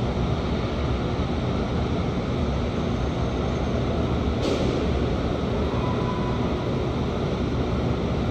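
Steady low rumble of a rail yard, with a short sharp click about four and a half seconds in.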